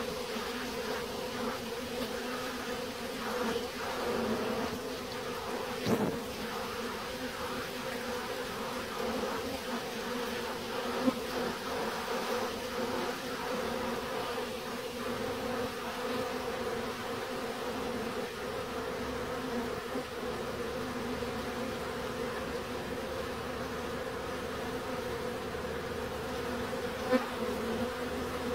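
A honeybee colony buzzing at its hive entrance: a steady hum of many bees fanning and flying in and out, broken by a few brief taps.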